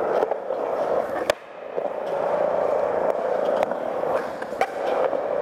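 Skateboard wheels rolling on smooth concrete, a steady rolling hum, with one sharp click about a second in and a few lighter clicks later.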